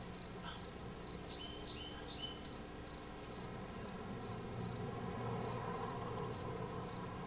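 A cricket chirping steadily, about two chirps a second, with a few short bird notes about a second and a half in. A low rushing noise swells in the second half.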